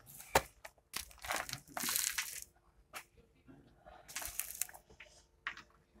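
Footsteps crunching on railway track ballast stones, a few irregular crunches with the loudest about two seconds in and another just after four seconds.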